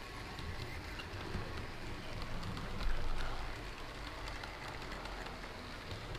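Model Brighton Belle train running past on the layout's track: a steady rattle of wheels and motor with many small clicks, swelling briefly about three seconds in.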